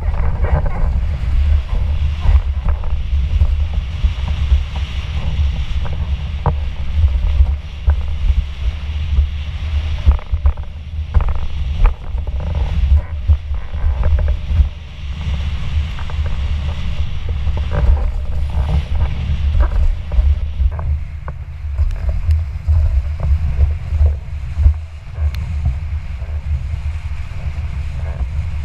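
Heavy wind buffeting on a boom-mounted camera's microphone, with a steady hiss of water rushing past a windfoil board, and scattered sharp knocks.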